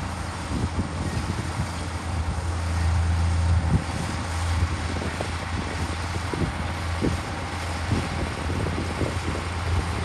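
Komatsu D53P crawler bulldozer's diesel engine running steadily under load as it pushes a heap of dirt and rocks with its blade, with scattered knocks from rocks and the steel tracks. The engine note swells a little between about two and four seconds in.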